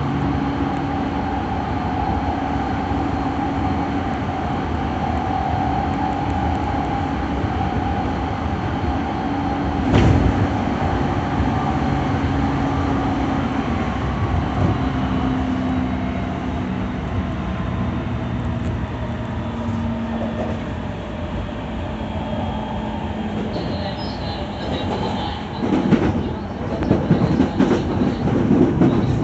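E217 series electric train running along the track: a steady rumble of wheels on rail with electric motor hums that shift pitch in steps. A single sharp knock comes about ten seconds in, and a run of irregular knocks and clatter near the end, as over rail joints or points.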